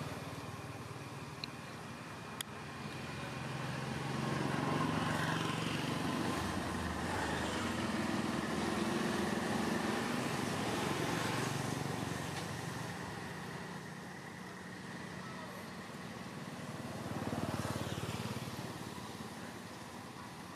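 A motor vehicle's engine running, with a low hum that grows louder about four seconds in, eases off after about twelve seconds and swells briefly again near the end.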